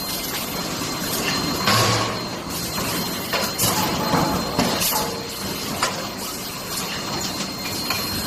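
Automatic bolt-head hot-forging line running: a steady mechanical din from the flywheel forging press and its transfer arms, broken every second or two by sharp clanks and short hisses.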